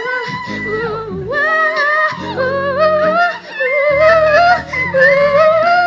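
R&B vocal sung live into a microphone: wordless, ornamented runs that slide up and down between held notes, over a backing track of sustained low chords.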